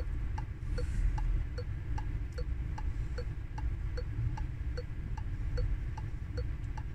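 Car's right turn indicator ticking inside the cabin: an even tick-tock, a click about every 0.4 s alternating higher and lower, over a low steady cabin rumble.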